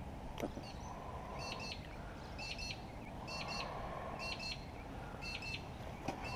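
A bird calling repeatedly: four or so short double chirps, high-pitched, roughly a second apart, over steady low background noise. A sharp click just after the start and another near the end.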